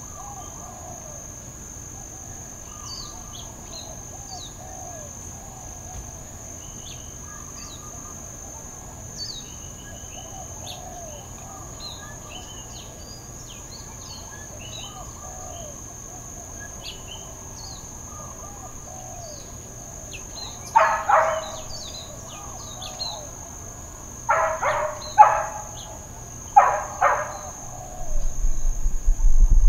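Neighbourhood dogs barking intermittently: a short bark about two-thirds of the way in, then a quick run of three barks and two more near the end. Throughout, insects keep up a steady high buzz with scattered bird chirps, and a low rumble comes up at the very end.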